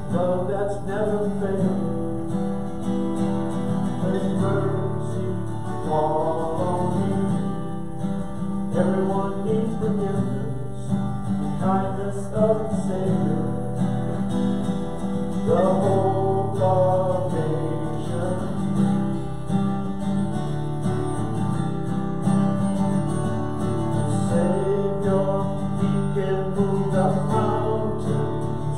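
Acoustic guitar strummed steadily, accompanying a man singing a worship song.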